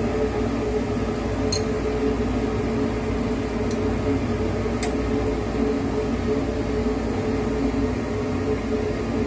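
A steady machine hum with a constant droning tone, and a few faint clicks from hand work on the engine.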